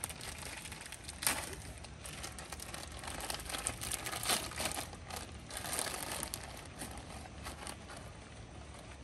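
Plastic snack wrappers crinkling in irregular bursts as they are handled.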